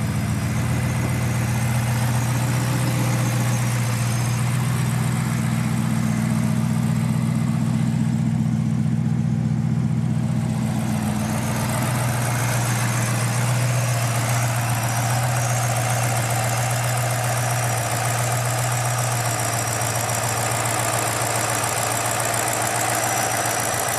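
BMW N62 4.4-litre V8 idling steadily, with a smooth, even hum, its vacuum leak at the eccentric shaft sensor seal freshly sealed.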